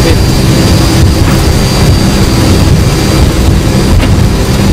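Boeing 757 jet engines heard from inside the cockpit during takeoff: a steady, loud rumble with a thin, steady high whine above it.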